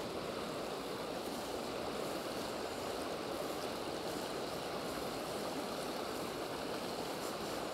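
River water flowing in a steady, even rush.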